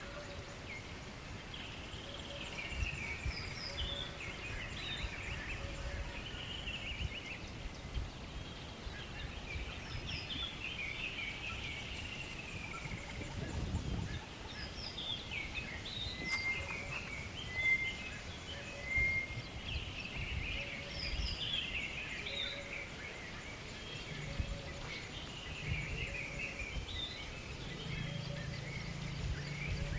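Birds singing: chirping, warbling phrases repeating every few seconds, over a low rumbling background noise.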